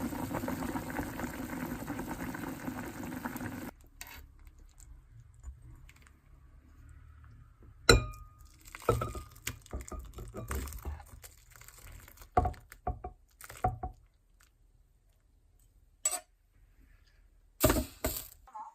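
Kitchen sounds: a steady rush like running tap water cuts off suddenly a few seconds in, followed by scattered knocks and clinks of dishes and utensils being handled.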